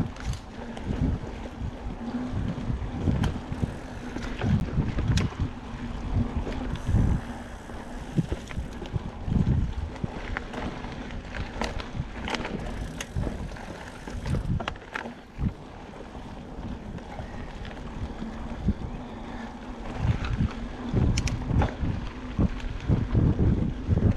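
Mountain bike riding over a dirt trail: wind buffeting the microphone, with low rumble from the tyres and frequent sharp clicks and rattles from the bike over bumps.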